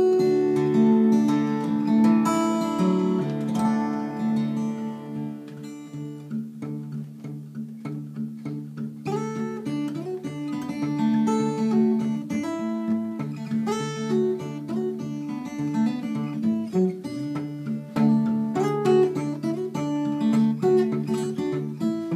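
Solo steel-string acoustic guitar played fingerstyle in open CGCGCD (C sus 4) tuning with a capo: ringing bass notes under a plucked melody. The playing gets quieter and sparser for a few seconds near the middle, then picks up again.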